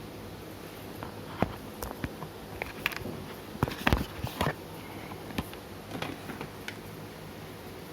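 Scattered light clicks and taps of a phone and its packaging being handled, with a cluster of sharper knocks about halfway through, over a steady low hum.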